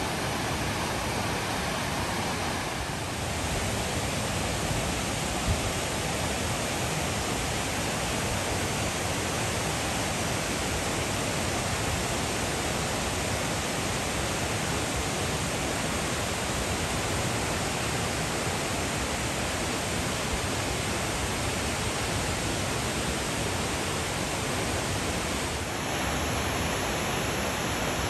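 Waterfall: a steady, dense rush of falling water.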